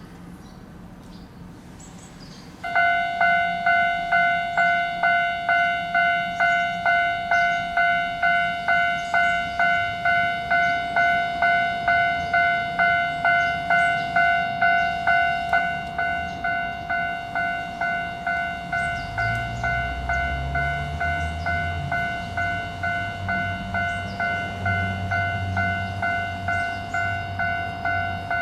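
Japanese level-crossing warning bell starting about two and a half seconds in, ringing about twice a second, and dropping to a lower volume about halfway through. A Keio Line train is heard approaching and passing under the bell in the last third, as a low rumble with shifting motor tones.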